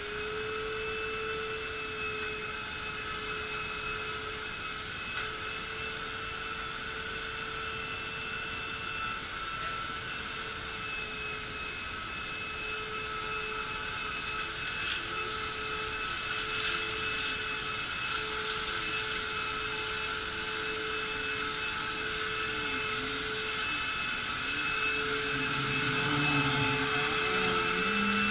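Vacuum cleaner running steadily after being switched on, its motor settling into a steady whine over a rush of air, with faint ticks and a lower rumble coming in during the second half.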